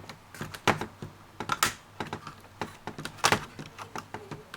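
Irregular clicks and knocks of plastic as a laptop's top case is wiggled and pried off its base, with a few louder snaps among quieter ticks.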